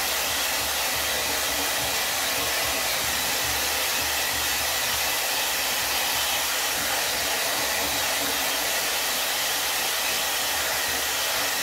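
DAILYTOP 5-in-1 hot air blow dryer brush running steadily, its fan blowing air to dry hair, as an even, unbroken hiss.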